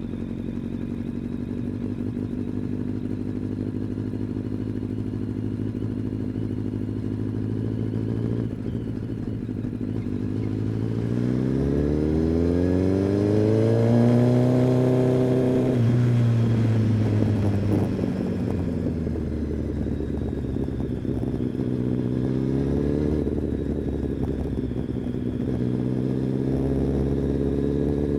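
Kawasaki ZX-10R inline-four engine and exhaust running at a steady pitch, then revving up through the gear about halfway in, easing off, and pulling up again near the end.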